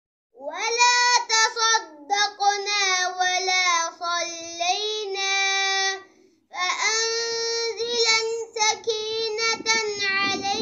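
A child's high voice singing long, gliding melodic phrases with no instruments. It breaks off briefly about six seconds in.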